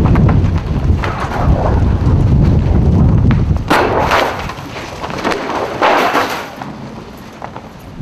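Downburst wind buffeting the microphone with heavy low rumbling for the first three and a half seconds, then two harsh hissing rushes of wind about four and six seconds in, easing near the end.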